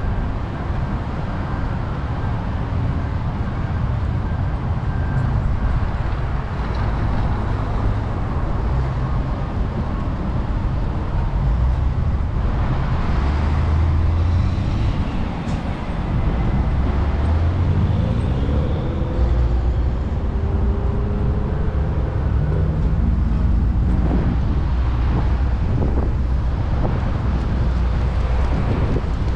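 Road traffic with a steady low rumble. Around the middle, a vehicle's engine rises in pitch as it accelerates.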